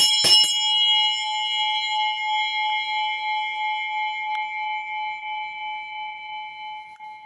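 A brass handbell tuned to A5: its clapper strikes twice more in quick succession, then the bell is left to ring out as one clear, sustained note with bright overtones, slowly fading.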